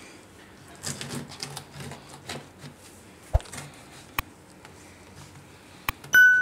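A large knife cutting and scraping through jackfruit on a wooden cutting board, with a few sharp knocks of the blade against the board. Near the end comes a mouse click, then a bright bell chime from a subscribe-button animation, the loudest sound.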